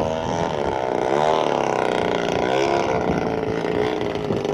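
A motor or engine running continuously, its pitch wavering up and down.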